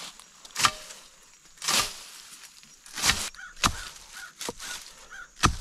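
Footsteps crunching through dry leaves and undergrowth, about six uneven steps, the last near the end being the loudest. Faint chirps repeat about twice a second behind them in the second half.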